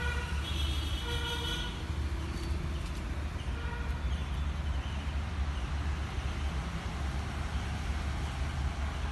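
Steady low rumble of road traffic, with a vehicle horn tooting several short times in the first few seconds.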